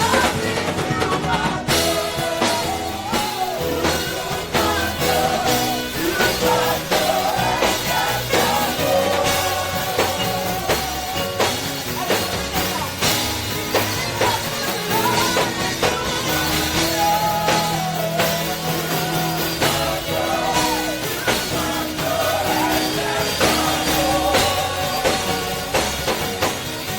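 Live gospel praise music: a band with a drum kit playing steadily under singing.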